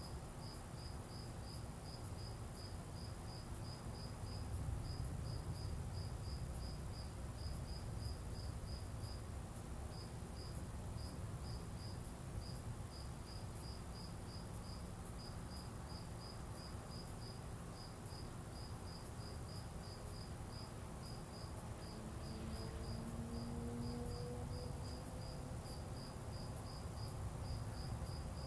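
A cricket chirping steadily at one high pitch, about three chirps a second with a few brief pauses, over a low steady rumble.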